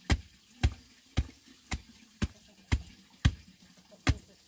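Knife chopping on a cutting board: sharp, even strokes about two a second, with a slightly longer pause before the last one near the end.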